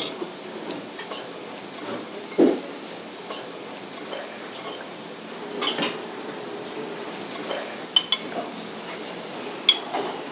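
Cutlery clinking and scraping against plates during a meal: a few scattered sharp clinks and one duller knock against a steady background hum.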